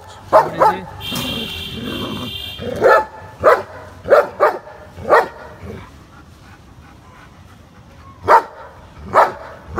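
German shepherd barking at a cat: about nine short, sharp barks in loose bunches, with a pause of about two seconds before the last two. About a second in, a drawn-out hiss lasting about a second and a half sounds between the barks.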